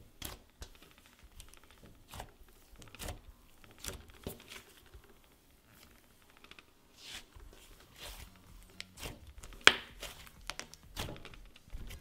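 Thick, soft cloud-dough slime being pressed and pulled apart by fingers, giving irregular soft crackles and small tearing pops, with one louder pop about ten seconds in.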